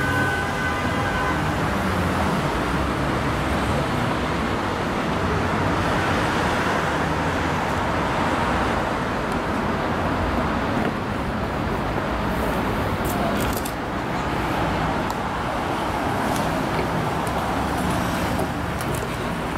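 Steady city road traffic noise: cars passing on a busy street, with a pitched tone fading out about a second in.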